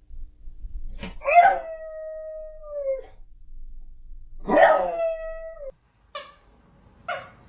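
A dog howling: two long howls, each held at a steady pitch and dropping away at the end, then a few short calls near the end.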